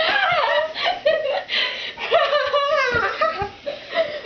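Several girls laughing and giggling together in high voices.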